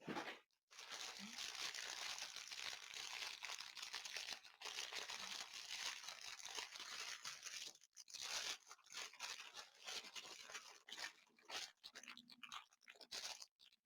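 Plastic packaging crinkling and rustling as a diamond painting kit is handled. The sound runs for most of the first eight seconds, then comes in shorter bursts of crackle.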